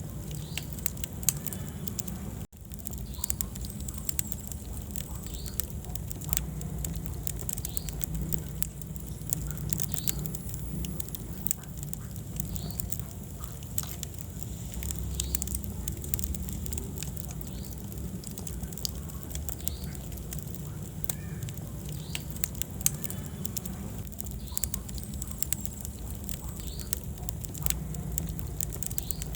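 Wood fire burning in a fireplace: irregular sharp crackles and pops over a steady low rumble of the flames. The sound cuts out for a moment about two and a half seconds in.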